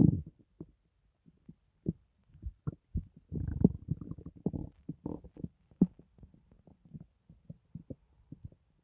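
Human stomach gurgling and rumbling: irregular bubbling pops, a loud one right at the start, and a longer gurgle about three and a half seconds in.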